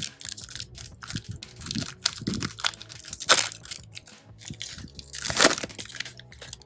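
Foil trading-card pack being torn open, its wrapper crinkling and rustling in irregular bursts, with two louder tearing rips about three and five and a half seconds in.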